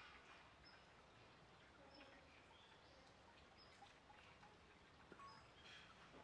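Near silence: faint outdoor ambience with small birds giving short, high chirps every second or so.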